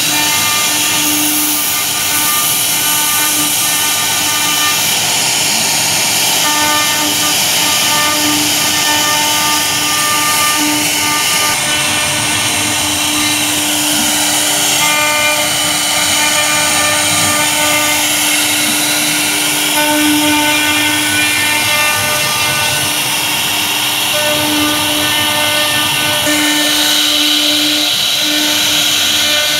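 CNC router spindle running a V-carving bit through a fibreboard (MDF) sheet: a steady high whine and cutting hiss, with a lower hum that keeps dropping out and returning as the bit moves along.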